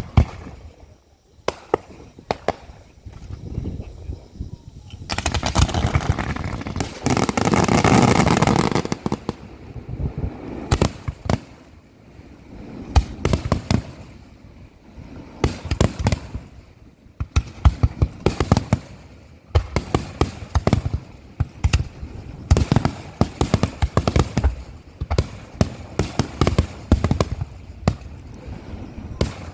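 Aerial fireworks bursting in a finale barrage: rapid volleys of sharp bangs, with a dense unbroken stretch of bursts about five to nine seconds in.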